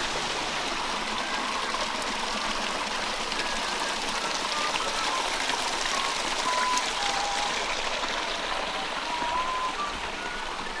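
Steady rushing of a flowing stream, with a few faint short high tones over it.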